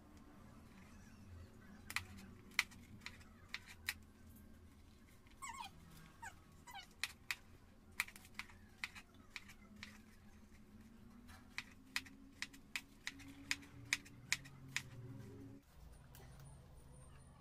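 Kitchen knife cutting a vegetable on a wooden cutting board: irregular sharp taps as the blade strikes the board, one or two a second. A brief high whine about five seconds in.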